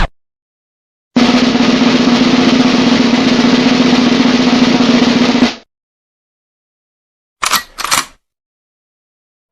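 Snare drum roll sound effect, about four seconds of fast continuous rolling that cuts off abruptly. A couple of seconds later come two short, sharp sounds in quick succession.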